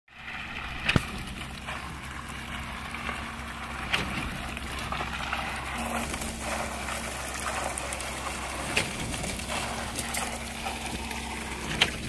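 Truck-mounted concrete mixer pump running steadily while pumping concrete. A sharp knock comes every three to five seconds, four in all.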